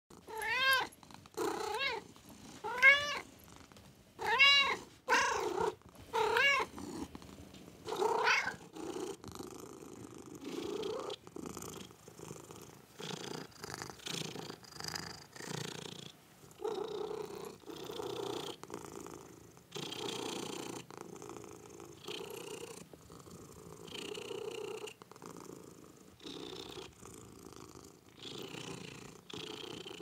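Kittens meowing: a run of loud, high meows one after another for the first eight seconds or so, then many quieter, shorter mews.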